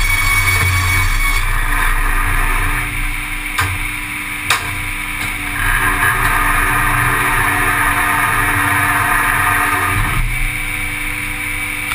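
Circular sawmill running: a large circular saw blade and toothed feed rollers turning with a steady, loud machine noise as timber passes through. Two sharp knocks come about three and a half and four and a half seconds in, and the noise grows louder for a stretch from about six to ten seconds in.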